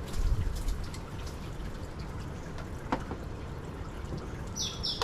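Water running and splashing as a handful of leaves is rinsed by hand, with a short low bump of handling at the start.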